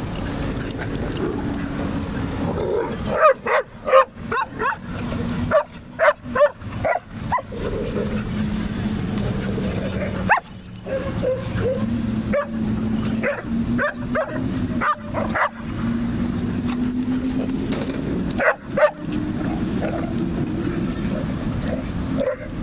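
Dogs barking and yipping in rough play: short sharp barks come in clusters a few seconds in, again around the middle and once more near the end, over a steady low hum.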